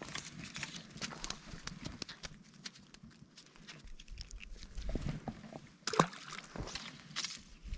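Close handling noise as a landed brook trout is unhooked and released: rustling of grass and gloves, clicks of the net and line. A sharp knock comes about six seconds in.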